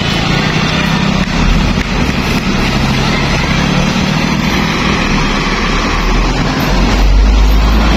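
Tour coach's diesel engine running as the bus drives past, a steady low rumble that grows heavier near the end.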